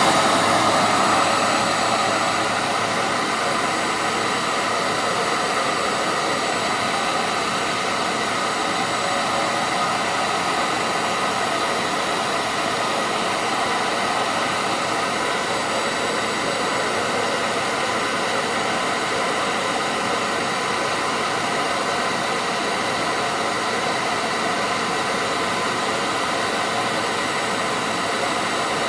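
Hoover Powerdrive XL vacuum cleaner motor running steadily at full power, a constant whine over rushing air as it pulls air through the airflow meter during an airflow test. It is a little louder for the first second or two after switch-on, then settles.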